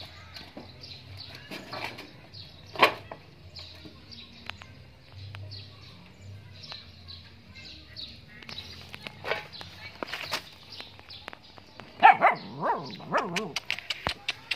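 Animal calls: short high chirps repeating on and off over a low steady hum. About twelve seconds in come several louder calls that waver up and down in pitch.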